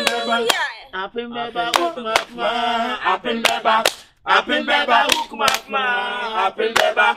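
A group of people singing loudly with long held notes, together with sharp, irregular hand claps.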